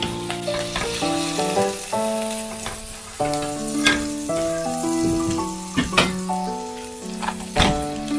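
Soy sauce bubbling and scorching in hot oil in a frying pan, a steady sizzle, with a few sharp knocks. Light background music with a stepping melody plays over it.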